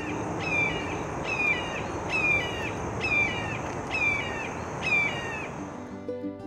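Red-shouldered hawk calling a repeated series of about seven downslurred 'kee-ah' screams, evenly spaced under a second apart, over steady outdoor background noise.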